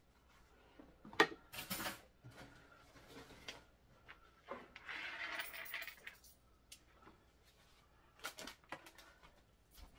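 Small hard objects clinking and clattering on a wooden coffee table as clutter is picked up and sorted, with the sharpest clink just over a second in and a few more near the end. A longer rustle of handled items about five seconds in.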